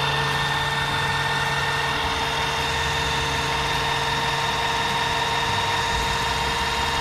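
Electric car jack's motor running with a steady whine as it lowers the car.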